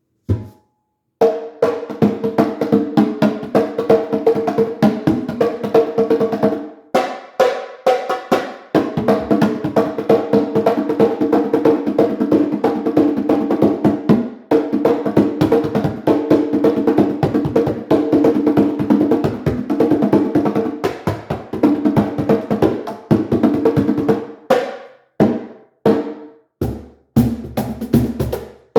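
Drums played fast and continuously in rapid strokes and rolls, the drumheads ringing with a clear pitch. The playing breaks off briefly a few times, near the middle and again near the end.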